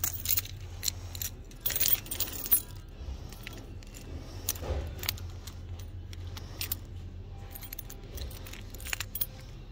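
Keys jangling, with metal clicks and rattles in short bursts, the densest run about two seconds in.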